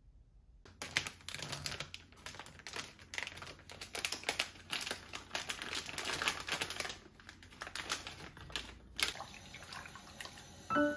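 Plastic package crinkling and crackling as dried shredded daikon (kiriboshi daikon) is shaken out of it into a glass bowl. It is a dense, continuous rustle of clicks, ending in one sharp click. Near the end it gives way to quieter tap water.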